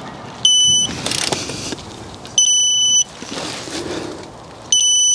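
Digital torque wrench beeping three times, about two seconds apart, each a steady high beep of about half a second, as each wheel bolt reaches its set torque. Quieter handling noise from the wrench between the beeps.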